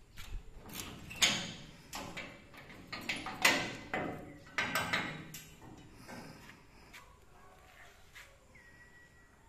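Steel bar gate being handled and opened: a run of metal clanks, rattles and scrapes, the loudest about one and three and a half seconds in, dying away after about six seconds.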